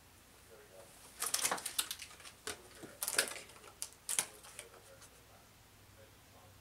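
Quick clicks, taps and rustles of a small toy and its cardboard and plastic packaging being handled, starting about a second in and stopping about four and a half seconds in.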